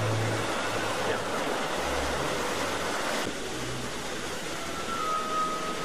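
Sea surf breaking and washing up the beach, a steady rushing noise.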